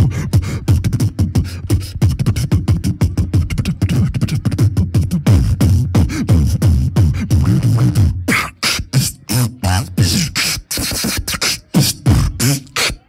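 Solo beatboxing through a handheld microphone and PA: a fast, dense rhythm of mouth-made kick drums, clicks and snares over heavy bass. About eight seconds in the bass drops away and the pattern turns sparser, with sharper snare and hi-hat hits broken by short gaps.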